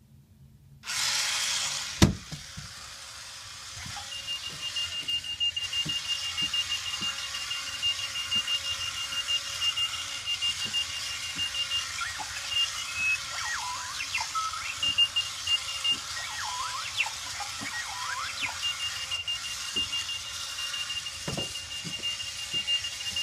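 Clocky runaway alarm clock going off: a rapid, high-pitched electronic beeping, broken in the middle by a run of short rising chirps before the beeping resumes. There is a hiss and scattered knocks underneath, and a sharp click about two seconds in.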